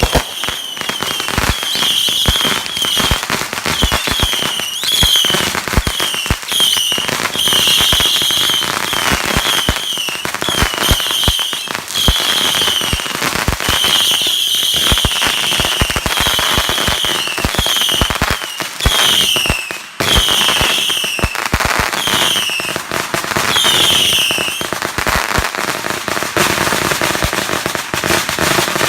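Fireworks going off in rapid succession: a dense stream of crackling and popping, with many short whistles that fall in pitch, one after another. The whistles stop near the end while the crackling goes on.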